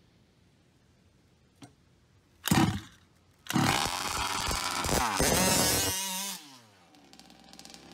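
Large-scale gas RC buggy's small two-stroke engine: a short burst as it is pull-started, then it catches and revs loudly for about three seconds. Its pitch then falls and it fades as the buggy drives off.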